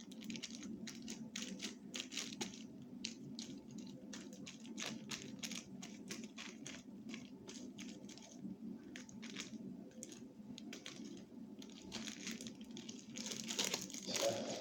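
A plastic bag crinkling and rustling in the hands in quick irregular crackles as homemade glue slime is pushed into it.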